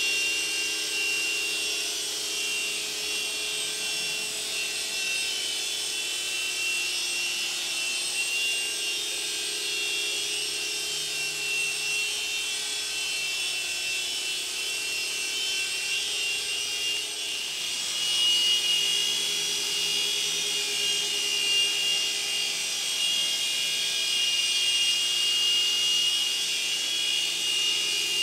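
Mini UH-60-style 3-channel coaxial RC helicopter in flight: its small electric motors give a steady high whine along with the buzz of the twin rotors. It gets a little louder about two-thirds of the way through.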